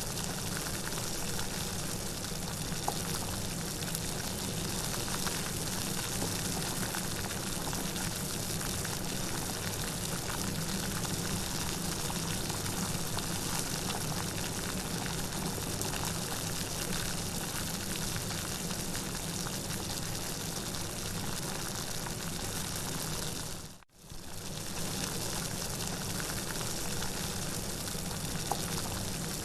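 Steady rain falling, an even hiss with fine scattered drop ticks. It dips out abruptly for a moment about 24 seconds in and then comes straight back, as at a loop point in the recording.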